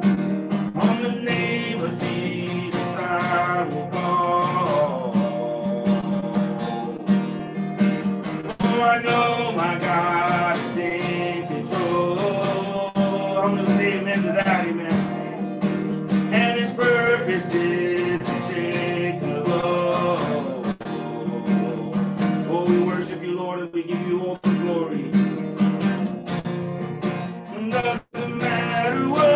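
Acoustic guitar strummed steadily, playing a worship song, with a man's voice singing over it.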